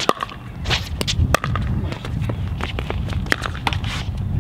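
A pickleball rally: a string of sharp pops from paddles striking the plastic ball, mixed with footsteps and shoe scuffs on the hard court, over a low rumble of wind on the microphone.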